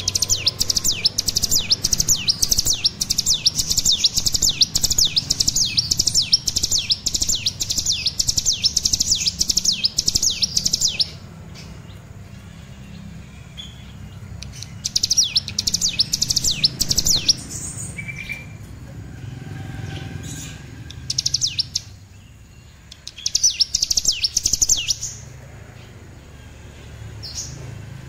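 Young cigun (mountain prinia) singing a fast string of repeated sharp, high rising notes for about eleven seconds, then two shorter bursts later on; a juvenile still learning its song.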